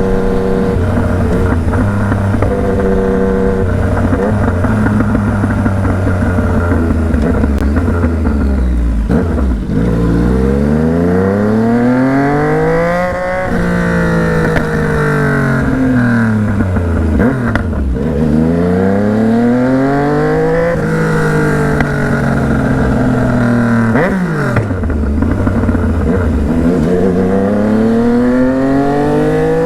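Yamaha MT-09 inline three-cylinder engine running under a riding load, holding a fairly steady note for the first third. Its revs then climb and fall three times as the rider opens and rolls off the throttle.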